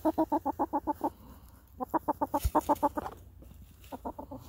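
A hen clucking in quick runs of short, rapid clucks, about eight a second, three runs with short pauses between.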